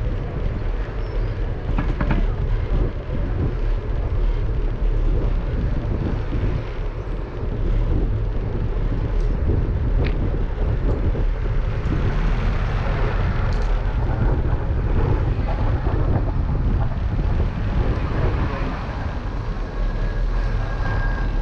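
Wind buffeting a GoPro's microphone on a moving bicycle: a steady low rumble, with a few faint clicks.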